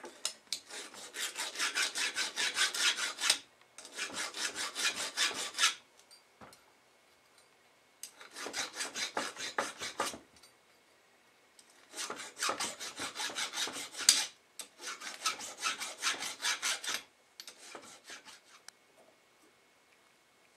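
Hand file rasping on metal in quick back-and-forth strokes, about five a second, in six runs of about two seconds each with short pauses between; the last run is fainter.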